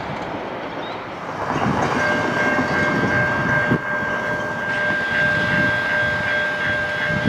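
Railway pedestrian-crossing warning bells ringing with a rapid, repeating ding and a steady high tone, over the low rumble of an approaching train.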